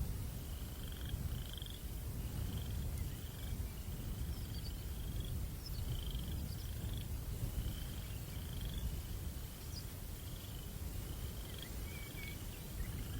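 Night ambience: a cricket chirping steadily, short chirps about one or two a second, over a low rumble of breeze, with a few faint higher chirps now and then.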